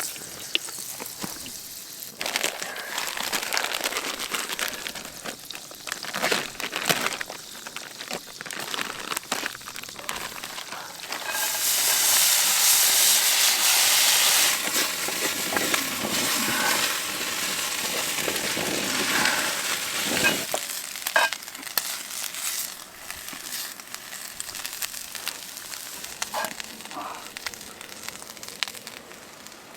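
Water sizzling and hissing into steam on the hot stones of a sauna stove. The loudest hiss comes about a third of the way in, lasts a few seconds and then fades, with smaller hisses and crackles around it.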